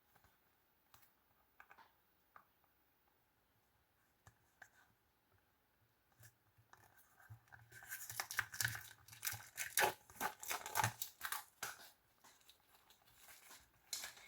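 Plastic shrink-wrap being torn and peeled off a Blu-ray case by hand. A few faint handling clicks come first, then from about halfway in a run of crinkling and tearing.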